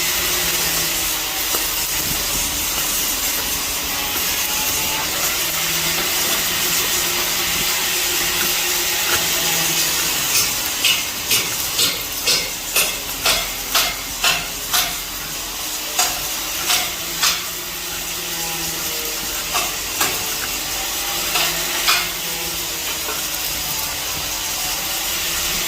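Steady crackling hiss of electric arc welding on steel. About ten seconds in comes a run of sharp metal taps, about two a second, then a few scattered ones.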